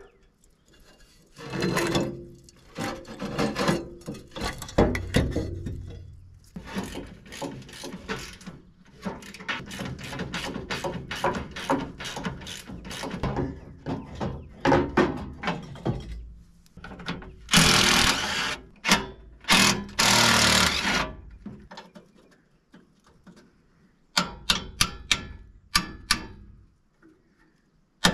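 Metal clanking, knocking and scraping as a bulldozer's engine cooling fan and shroud are worked loose by hand. There are two louder bursts of rattling noise about two-thirds of the way in. A quick run of hammer taps comes near the end.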